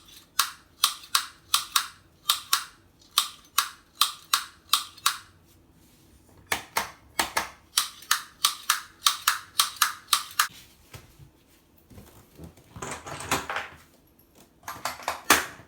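Makita HR3520 hammer drill's trigger switch clicking as it is pressed and released over and over, about two to three clicks a second, with a short pause about five seconds in; this is a check that the new switch springs back cleanly. Two short rustling scrapes follow near the end.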